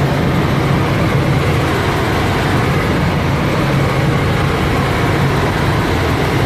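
Small helicopter in flight heard from inside the cabin: the engine and rotor make a loud, steady drone with a low hum.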